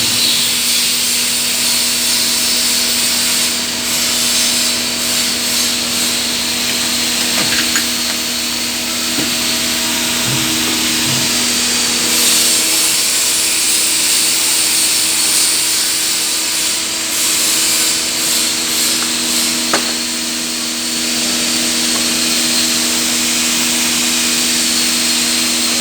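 CNC lathe turning a 150 mm pulley: a steady machine hum with a high hiss of cutting. The hum shifts slightly about halfway through.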